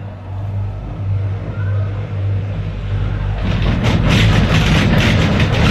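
Gondola cabin heard from inside as it runs into a station: a steady low hum from the line's machinery, then, about three and a half seconds in, a loud, fast rattling clatter as the cabin's grip runs over the station's rollers.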